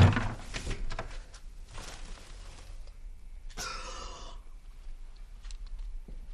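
A man's sharp gasp of shock about halfway through, lasting under a second, against quiet room tone.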